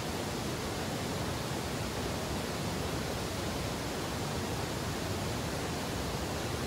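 Steady, even rushing noise with no breaks, gusts or distinct events.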